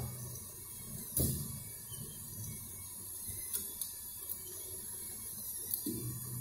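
Small electric motor of a wired metal construction-kit model vehicle running with a steady mechanical whir, with a few sharp clicks and knocks from its parts.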